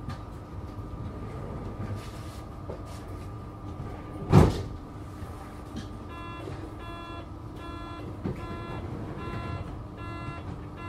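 Adtranz GT6N tram standing with a steady electrical hum. A loud thump comes about four seconds in. From about six seconds a repeating electronic beep sounds about twice a second, the warning signal for the doors.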